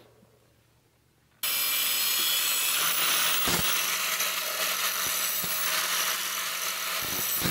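Angle grinder grinding the end of a steel exhaust header tube to shape it for a fit-up. After a brief near-silent moment it starts suddenly about a second and a half in and runs steadily as a loud, harsh, hissing grind.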